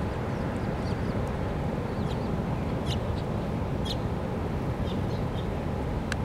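Small birds giving short, high chirps every so often over a steady low rumble.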